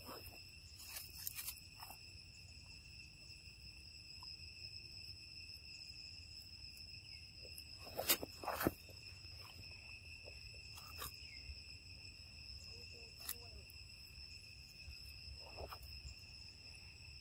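Steady high-pitched drone of insects (crickets or cicadas) in two even tones, with a few brief rustles and knocks scattered through, the loudest a pair about eight seconds in.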